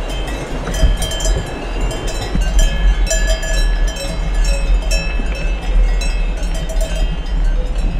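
Cowbells on grazing cattle ringing at several different pitches, each note starting and stopping irregularly, over a steady low rumble of wind and riding noise.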